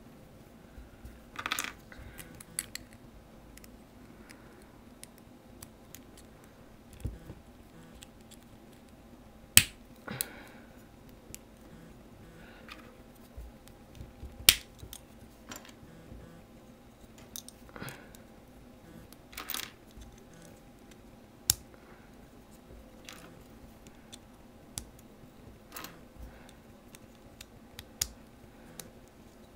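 Hard plastic Bionicle and Lego Technic pieces clicking and clattering as they are picked up off a table, pinned together and set down: scattered sharp clicks, with two louder snaps about a third and halfway through, over a faint steady hum.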